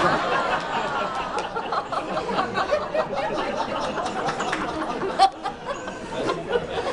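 A room full of guests laughing at a joke, many voices overlapping with some chatter; one sharp knock about five seconds in.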